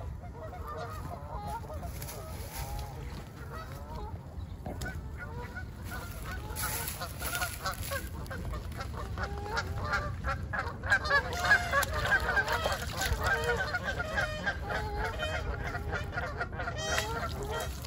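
Geese honking, many short calls overlapping, getting busier and louder in the second half.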